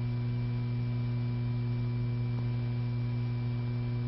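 Steady low electrical hum with a faint hiss, unchanging throughout: background hum on an old film soundtrack, with no mechanical sound from the gun.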